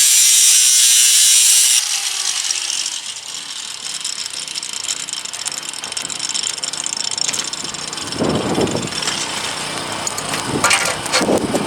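Angle grinder cutting steel, shut off about two seconds in, its whine falling as the disc winds down. A lower steady hiss with scattered louder bursts follows.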